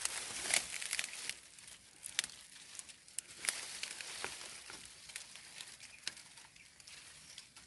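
Dry twigs and leaf litter rustling and crackling as undergrowth is pushed aside by hand, with many irregular sharp snaps and clicks, busiest in the first second or so.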